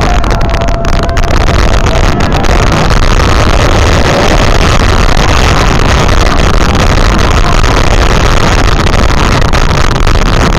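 Loud, steady rush of wind on the microphone with the rumble of a steel roller coaster train running at speed through its track.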